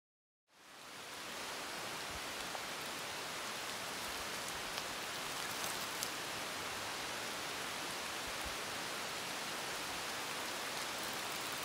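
Steady hiss of rain falling on the forest foliage, with a few faint drip ticks; it fades in about half a second in.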